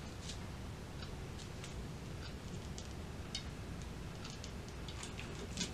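Faint, scattered small clicks and taps as cut cardboard paper-towel-roll rings are handled and pressed together, with a hot glue gun in use.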